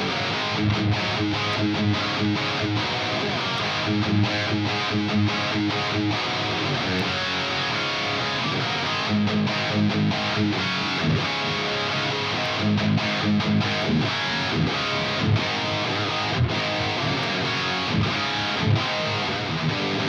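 Electric guitar played through a Bogner Snorkler 50 tube amp head, with distorted riffs of repeated low notes.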